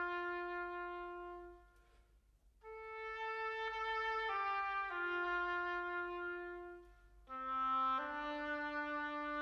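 Slow orchestral music of long held notes in short phrases. Brief pauses come about two seconds in and about seven seconds in, and several notes sound together as a chord near the end.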